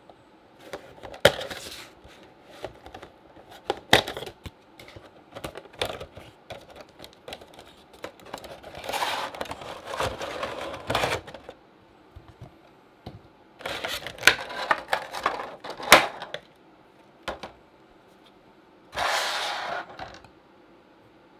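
Unboxing a Funko Pop vinyl figure: cardboard box and clear plastic packaging handled, with sharp taps and clicks and two longer spells of crinkling plastic about halfway through. A short rustle follows near the end.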